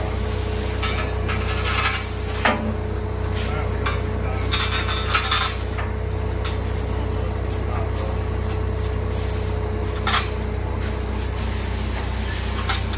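Steel lifting chains clinking and scraping against metal as they are handled and hooked around a machine, with a few sharp knocks, over a steady low hum.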